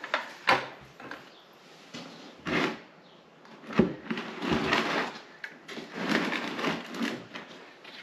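White plastic bucket partly filled with water being set down in a plastic tub and shifted about: a few sharp plastic knocks, then longer bouts of plastic scraping and rubbing against plastic.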